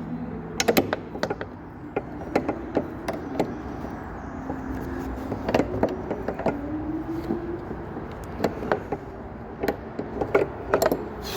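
Irregular metallic clicks and knocks of a socket and hand tools being worked on a stubborn bolt, over a steady low background hum.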